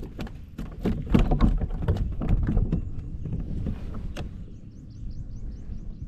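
Irregular knocks and clatter of gear being handled in a plastic fishing kayak, busy for about three seconds, then a single sharp click about four seconds in before it goes quieter.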